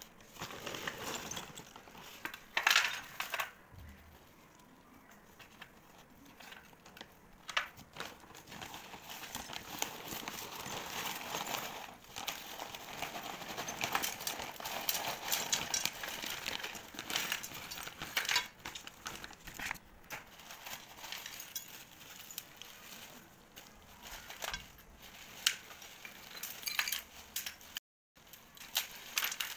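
Plastic bag crinkling as broken pieces of clay are shaken out of it, clinking and rattling onto a steel plate.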